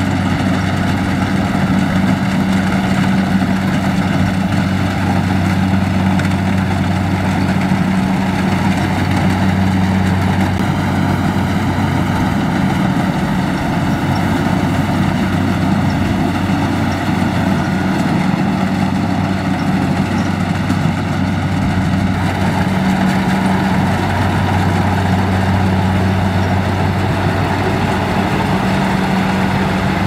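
Kubota DC-70 Plus rice combine harvester's diesel engine running steadily at a constant speed, a loud continuous low hum that eases a little midway and grows stronger again in the last third.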